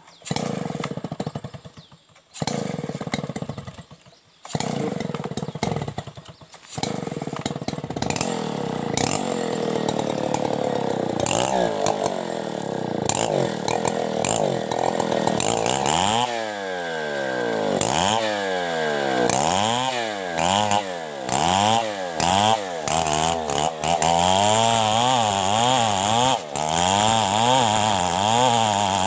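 Two-stroke chainsaw engine that cuts out briefly three times in the first few seconds, then runs steadily. From about halfway it revs up and down about once a second. The operator suspects a small fault, perhaps air getting in.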